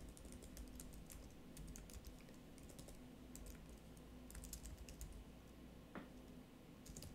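Faint typing on a computer keyboard: irregular soft key clicks as a sentence is typed.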